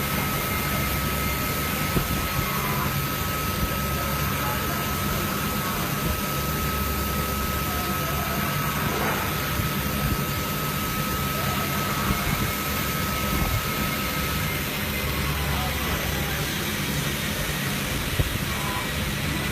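CNC machining centre running while milling an aluminium mould: a steady machine hum and noise with a thin high spindle whine that stops about fourteen seconds in, and a fainter, slightly higher whine later on.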